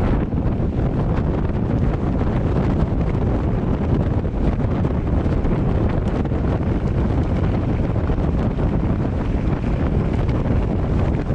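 Steady wind noise buffeting the microphone, a continuous rushing that is heaviest in the low end.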